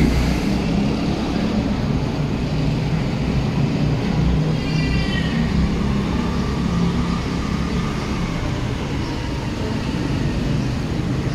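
Wind blowing on the phone's microphone, a steady low rush, with a short high chirp about five seconds in.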